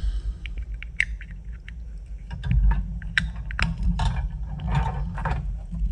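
Small hard-plastic model kit parts clicking and tapping as they are handled and test-fitted together, irregular sharp clicks over a low steady hum.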